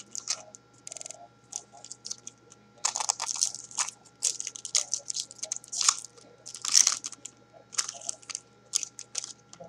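A trading card pack's wrapper crinkling and tearing as it is ripped open by hand, in irregular crackly bursts, loudest about three seconds in and again near seven seconds.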